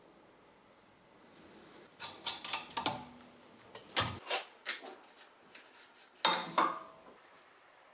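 Short metallic clinks and taps of a steel spanner on the belt-tensioner bolt and bracket of a compressor mount, and of metal fittings being handled, in small clusters with quiet gaps between.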